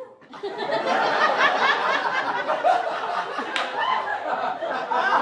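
Audience laughing, many voices at once, breaking out suddenly just after the start and carrying on.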